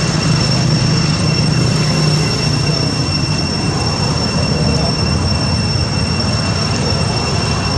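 Loud, steady outdoor background noise, carrying a constant high-pitched whine that does not change.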